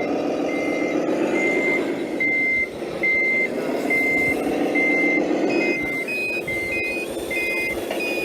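Reversing beepers on RC model trucks: one beeper sounding about once every 0.7 seconds, joined about five and a half seconds in by a second, higher-pitched beeper, with the first stopping near the end. Under the beeps, a motor whine rising and falling in pitch.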